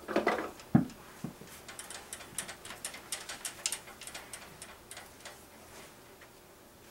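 Rummaging: a single knock about a second in, then a run of light clicks and taps as small objects are handled and moved around, thinning out and fading.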